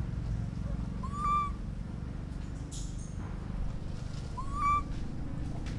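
Baby monkey calling twice, about three seconds apart; each call is short and whistle-like, rising and then holding its pitch, over a steady low background rumble.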